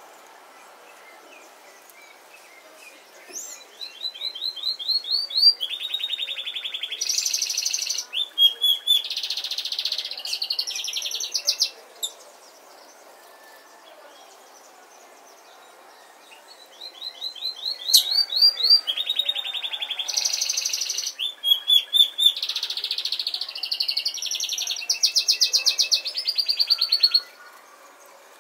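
A songbird singing two long, fast songs of chirps, rising notes and buzzy trills, each lasting about eight seconds, with a pause of a few seconds between them.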